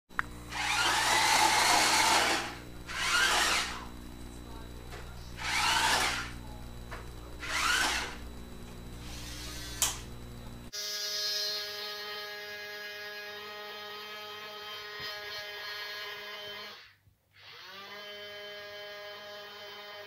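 Small electric motor of a Dickie Toys RC forklift whirring in four short bursts, each a second or two long, with a pitch that rises and falls. About halfway through it gives way to a steady electric hum that sinks, stops for a moment near the end, then rises and runs on.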